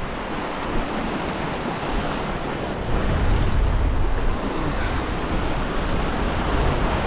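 Sea surf washing and surging over a rocky shore ledge, with wind buffeting the microphone; the low rumble gets heavier about three seconds in.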